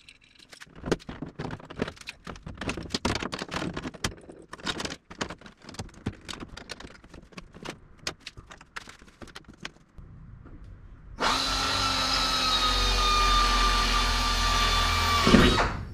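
Handling of aluminium parts and clamps: a run of irregular clicks, knocks and clatter as a piece is clamped into position. About eleven seconds in, a power drill starts and runs steadily for about four seconds, then winds down and stops.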